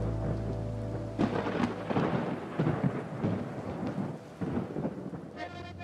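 Thunder over steady rain during an electrical storm: irregular cracks and rumbles from about a second in. Soft held music notes fade out at the start, and music comes in again near the end.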